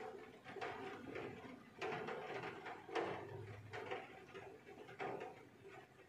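Rain heard through a closed window, with drops tapping irregularly about once a second.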